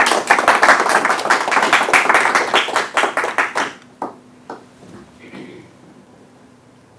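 Small audience applauding, the clapping thinning to a few last claps and stopping about four seconds in.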